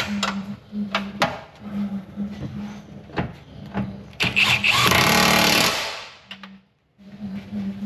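Workshop tool sounds: scattered metal knocks and clicks, then a loud power-tool burst lasting about two seconds from about four seconds in, over a steady low hum.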